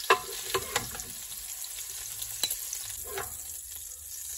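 Browned bacon lardons sizzling in hot oil, with a metal slotted spoon scraping and clinking against the pan as the bacon is scooped out; the sharpest clink comes just after the start.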